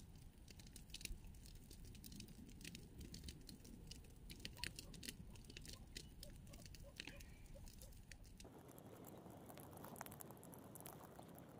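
Faint, irregular clicks and crackles of seed potatoes being cut with a small knife, with dry stalks rustling.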